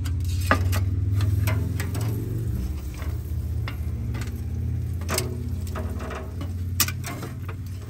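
Metal tongs clicking and scraping against a smoker's steel grates and a metal sheet pan as thick steaks are lifted off after the low-temperature smoking stage of a reverse sear. The meat sizzles faintly on the grate, with a steady low rumble underneath.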